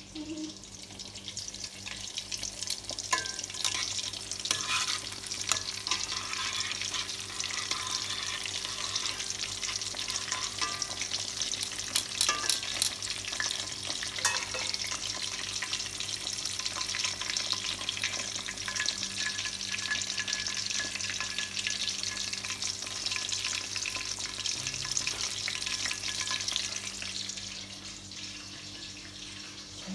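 Chicken nuggets frying, with a dense crackle and sizzle of hot fat that dies down near the end. A faint steady hum runs underneath.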